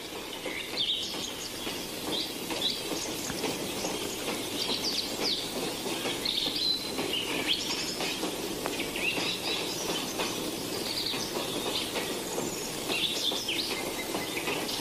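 Birds chirping, with many short calls scattered throughout, over the steady running noise of a moving train.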